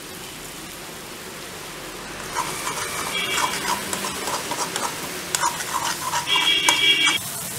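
Tomato, onion and green chillies sizzling gently in a metal kadai. About two seconds in, a slotted spatula starts stirring and scraping the pan, with rapid scraping clicks and two brief ringing squeals. It stops abruptly near the end.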